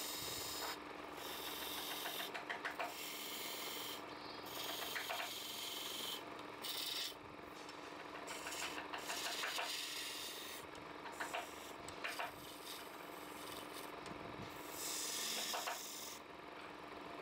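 Wood lathe running with a steady hum while a tool or abrasive rubs and rasps against the spinning wood. The rasping comes in uneven passes that swell and fall back every second or two.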